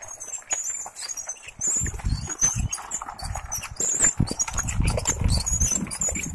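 A bicycle towing a homemade cart on bicycle wheels over a dirt path, with irregular rattling and knocks. From about a second and a half in, wind buffets the moving microphone in low gusts, and high chirps sound throughout.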